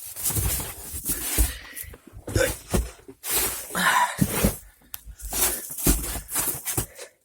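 Irregular rustling, scraping and light knocks of handling, coming and going in short bursts.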